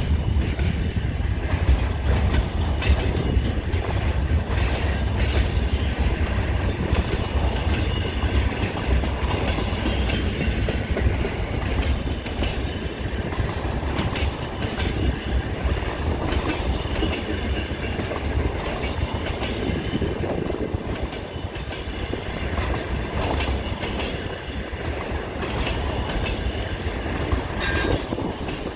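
Freight train wagons rolling steadily past on the rails: a continuous heavy low rumble with occasional sharp clacks of wheels over rail joints.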